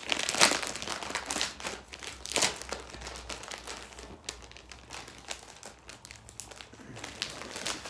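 Packaging being handled and crinkled, in irregular crackling bursts that are busiest in the first couple of seconds and thin out toward the end.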